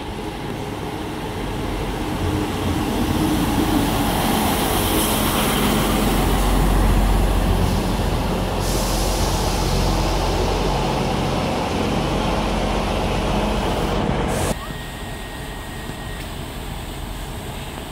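East Midlands Trains Class 158 diesel multiple unit running into the platform and braking, its diesel engines and wheels on the rails swelling in the middle with a hiss of brakes. About fourteen and a half seconds in it drops suddenly to the quieter steady sound of the unit idling at a standstill.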